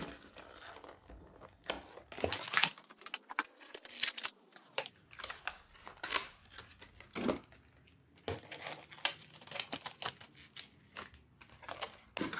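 A puzzle cube's packaging being torn open and crinkled by hand: irregular rustles, tears and small clicks, loudest about two to four seconds in.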